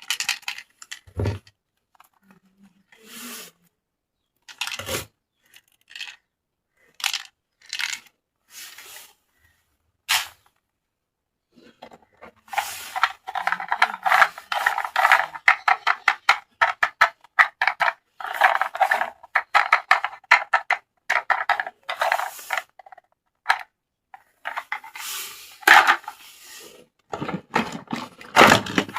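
Toy packaging being handled and unwrapped: scattered crinkles and rustles, then a long stretch of dense crinkling in the middle, with two soft thumps in the first few seconds.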